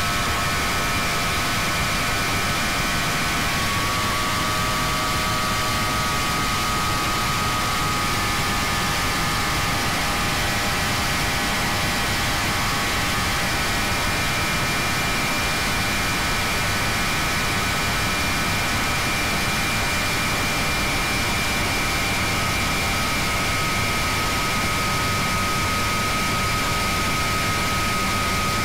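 High-performance catamaran powerboat running flat out at about 90 mph: a steady engine drone with a high whine that steps up slightly in pitch a few seconds in, under heavy wind rush on the microphone.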